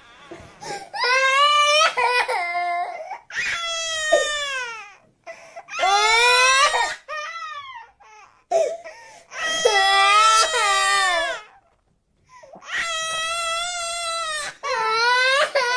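A cartoon child character crying: a string of high wailing sobs, each a second or two long with short breaks between, several sliding down in pitch at the end.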